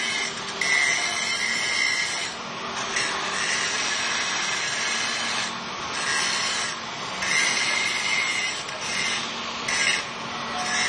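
Handheld angle grinder grinding metal: a continuous harsh grinding screech with a high edge that dips briefly a few times and comes back.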